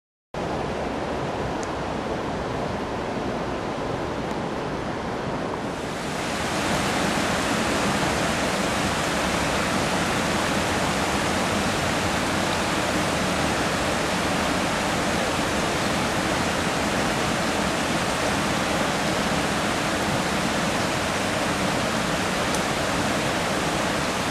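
Fast-flowing stream water rushing steadily, getting louder and brighter about six seconds in.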